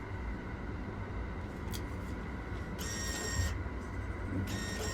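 Steady low rumble of a train running, heard from inside the carriage. Two short hissing, whirring bursts come about three and four and a half seconds in.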